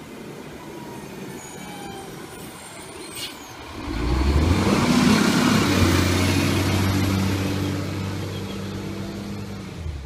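Diesel engine of a side-loading garbage truck driving past at close range. The engine is heard faintly at first, grows suddenly much louder about four seconds in as the truck draws level, then eases off as it moves on.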